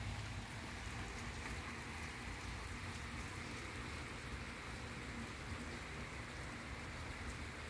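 Steady rain falling on a wet wooden deck and concrete paving, an even hiss of drops.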